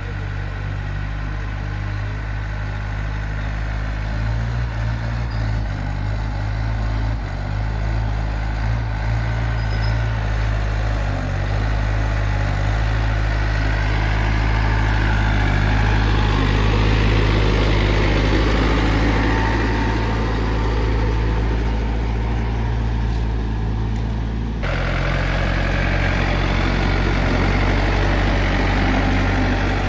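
Small farm tractor's diesel engine running steadily close by while its front dozer blade pushes crushed gravel, with a gritty scraping noise over the engine that swells in the middle. The sound changes abruptly about three-quarters of the way through.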